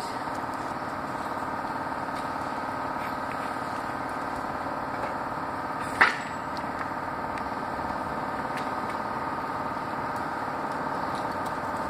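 A steady mechanical hum made of several even tones, unchanging throughout, with a single short sharp knock about six seconds in.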